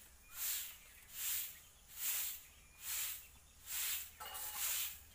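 A rhythmic hissing that swells and fades a little more than once a second, in an even beat, with a faint short pitched sound about four seconds in.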